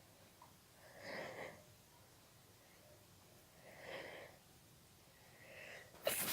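A person's soft, catching breaths as a sneeze builds, about a second in, about four seconds in and more faintly near five and a half, then a sharp gasp near the end as an uncovered sneeze breaks.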